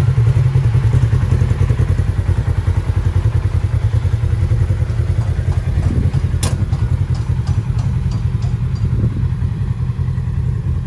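Polaris RZR 1000 side-by-side's parallel-twin engine idling steadily with an even low pulse, with a sharp click about six seconds in and a few light clatters after it.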